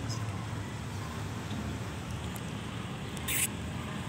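Steady outdoor background noise with a low rumble, and a brief hiss a little after three seconds in.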